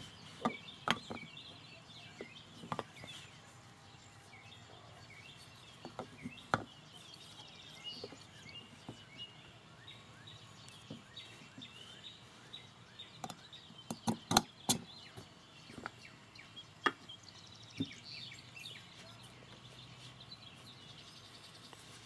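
Scattered light clicks and knocks of steel parts and a steel punch against an M1 carbine trigger housing as the trigger pin is pushed out, with a sharper cluster of clicks a little past halfway. Birds chirp faintly throughout.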